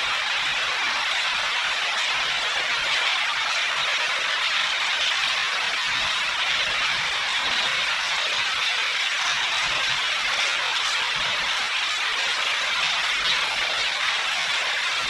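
Heavy tropical rain pouring onto wet brick paving, a dense, steady hiss.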